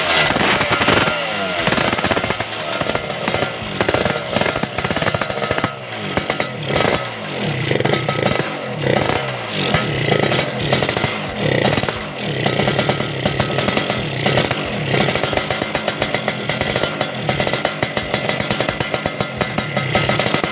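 Yamaha RX-King's single-cylinder two-stroke engine running and being revved, its pitch rising and falling several times: a test run of the freshly installed engine.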